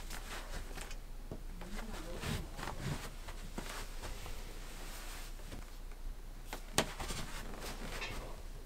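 Clothing being handled: soft rustling and brushing of knit fabric against a wooden tabletop, with a single sharp click a little before the end, over a low steady hum.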